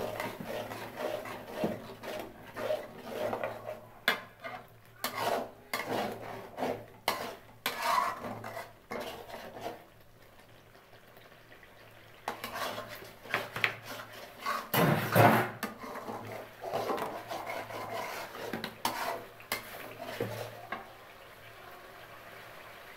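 Long steel spoon scraping and stirring thick chicken masala around an aluminium kadai, in many short irregular strokes against the metal. The stirring pauses for a couple of seconds about ten seconds in, resumes with a louder clank about fifteen seconds in, and stops shortly before the end.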